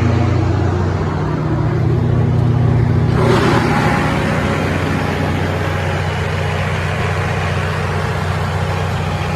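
John Deere 6081AF001 six-cylinder diesel engine of a Kohler 180 kW generator set running at a steady speed with a constant low hum. About three seconds in, a louder broad rushing hiss joins in and stays.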